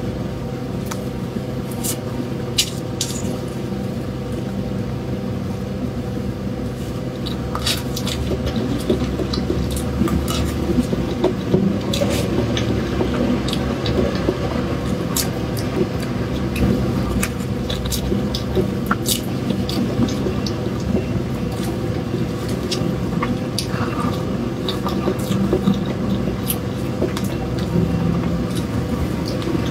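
A steady low rumble and hum, with scattered clicks and soft squishing from a spoon and a clear plastic box as a layered cream dessert is cut into.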